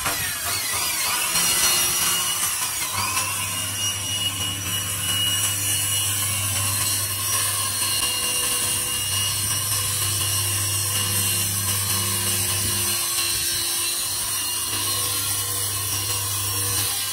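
A Bosch handheld circular saw runs steadily while its blade cuts along a black film-faced plywood sheet. The sound is a continuous motor whine over the rasp of the cut.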